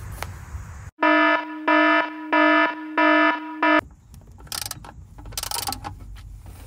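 An electronic alarm or buzzer beeps loudly on one steady pitch: four long beeps at about one and a half a second, and a short fifth that stops abruptly. Faint clatter and a couple of brief scraping noises follow.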